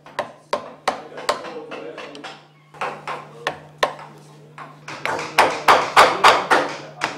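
Wood carving: a mallet tapping a carving gouge into wood in a run of sharp taps, a few a second. The taps come faster and louder in the last two seconds.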